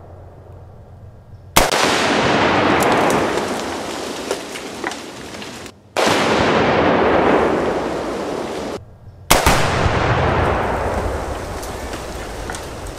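Tannerite charge at a beaver dam set off by a rifle shot: a sudden sharp blast followed by a long rumble that fades over a few seconds. It is heard three times, about four seconds apart.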